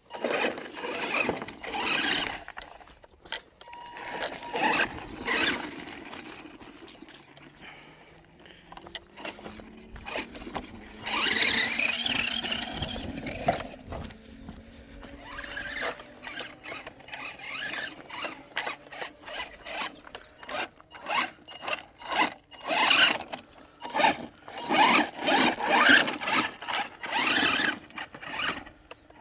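Maverick Phantom XT electric RC truck driving off-road: its motor whines in repeated short bursts of throttle, with the tyres scrabbling over rough ground. A rising whine runs through the middle.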